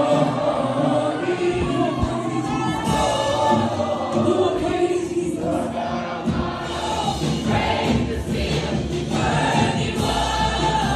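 Congregational worship music: many voices singing a gospel song together over instrumental backing.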